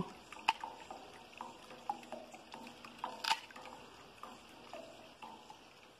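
Faint scattered drips and small clicks from a tilapia being handled and trimmed with sheet-metal shears over a wet tray, with a sharper click about half a second in and another about three seconds in.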